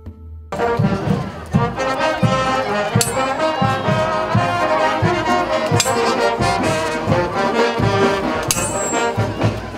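A brass band playing festive dance music: trumpets and trombones over a steady drum beat. It starts abruptly about half a second in.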